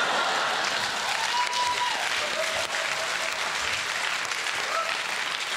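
Live audience applauding, with a few short whoops rising above the clapping.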